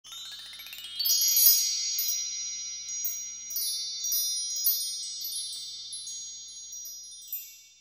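High chime tones as an opening sting: a quick rising run of bell-like notes, then chimes struck several more times, ringing on and slowly fading out.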